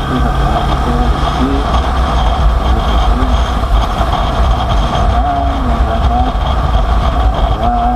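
Steady vehicle noise: a low engine hum under a constant rush, unbroken throughout.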